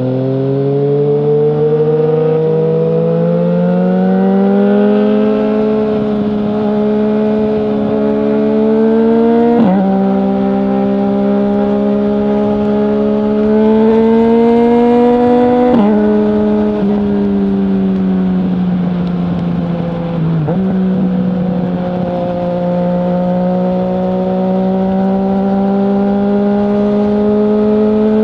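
2020 Yamaha MT-09's 847 cc inline-three through a full Akrapovic exhaust with no dB killer, pulling up through the gears. Pitch rises steadily, then drops sharply on upshifts about ten and sixteen seconds in. It then falls away as the throttle eases off and climbs slowly again as the bike picks up speed.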